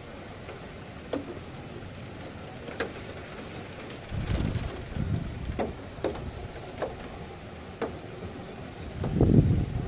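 Thunderstorm ambience: a steady hiss of rain and wind, with a handful of sharp taps and two low gusts buffeting the microphone, one about four seconds in and a louder one near the end.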